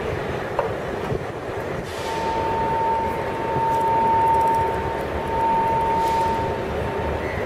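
Train running along the track, heard from on board: a steady rumble, with a steady high tone joining about two seconds in.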